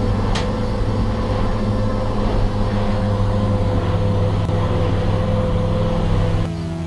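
Boat engine running at cruising speed, heard from inside the wheelhouse as a steady drone with water and spray noise on the hull, and one brief sharp knock about half a second in. It cuts off abruptly near the end.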